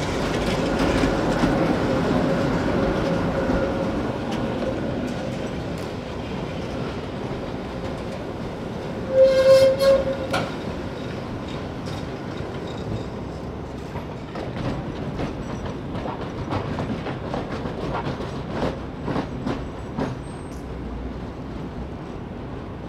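Tatra T3 trams running on the rails round a curve, with a steady whine over the first few seconds as one passes close. About nine seconds in there is a loud, short, horn-like tone, and later come scattered clicks of wheels over rail joints as another tram approaches.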